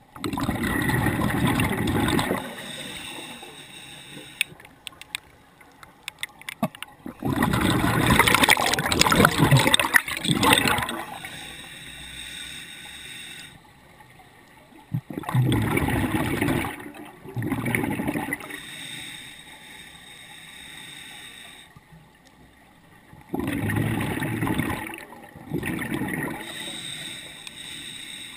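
Scuba diver breathing through a regulator underwater: several loud bursts of exhaled bubbles gurgling out, some in pairs, with a quieter steady hiss between them.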